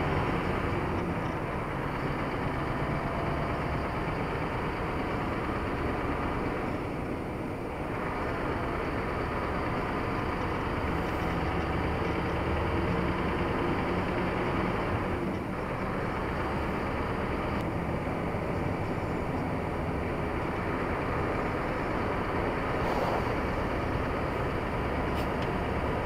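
Car being driven: steady engine and tyre noise on the road.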